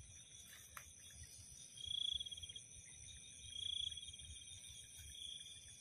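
Night insects, crickets among them, chirping with a steady high-pitched ringing. Three louder pulsing trills stand out, about two seconds in, just before four seconds and around five seconds.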